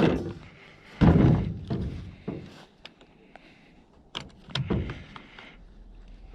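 Several heavy thunks and knocks, the loudest at the start and about a second in, with smaller clicks and taps between them, like a door or gear being handled.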